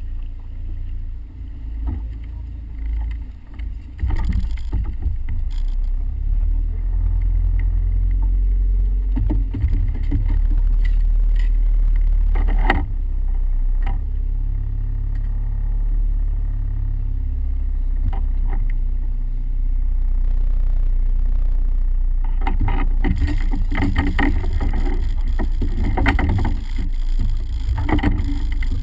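Steady low rumble in a small open fishing boat, with knocks and clatter of fishing gear being handled in the hull, busiest near the end.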